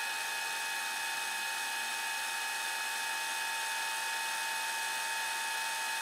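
Steady high-pitched whine over hiss, unchanging throughout: a fast-forward sound effect laid over sped-up footage.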